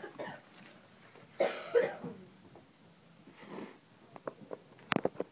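A person coughs loudly about a second and a half in, with a fainter cough-like breath about two seconds later. Near the end comes a quick run of sharp clicks and taps from a beer can being handled against a foil packet.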